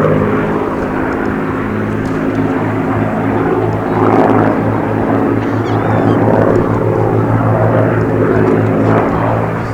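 Second World War fighter's Rolls-Royce Merlin V12 piston engine and propeller running with a steady drone that swells and eases slightly.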